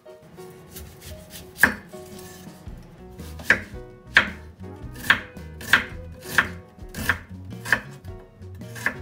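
Kitchen knife thinly slicing an onion on a wooden cutting board: nine sharp knocks of the blade through the onion onto the board, roughly one every two-thirds of a second, starting about a second and a half in.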